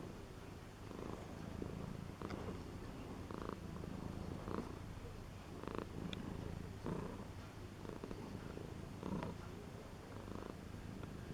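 Domestic cat purring steadily in a low rumble that swells with each breath, about once a second.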